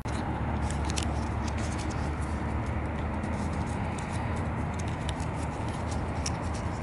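Sheet of paper being folded and creased into an origami crane by hand, with small crackles and clicks of the paper, over a steady low rumble.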